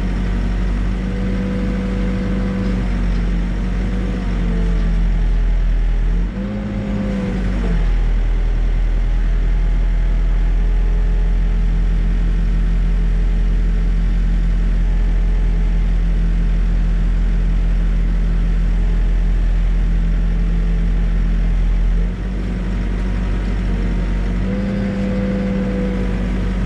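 Backhoe engine running at working speed, its note sagging briefly and recovering a few times as the hydraulics take load.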